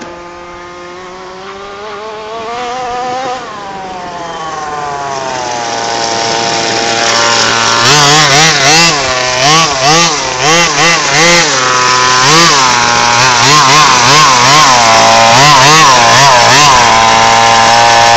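Radio-controlled off-road car's small engine running hard. Its pitch climbs and falls in the first few seconds; then it grows louder and from about eight seconds in revs up and back down again and again in quick succession.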